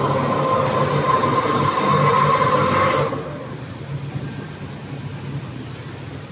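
Crystal tape slitting machine running with a loud, steady high whine that stops abruptly about three seconds in, over a steady low machine hum.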